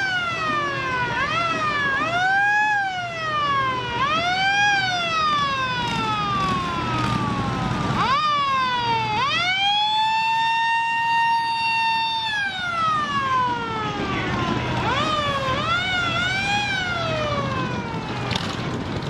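Fire engine siren sounding, rising and falling in wails: quicker up-and-down sweeps near the start and again near the end, and a slow rise held at the top then falling away in the middle, over the low running of vehicle engines.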